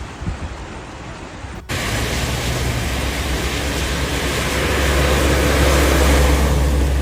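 Steady rushing noise of heavy rain and wind with a low vehicle hum underneath; the noise jumps suddenly much louder a little under two seconds in.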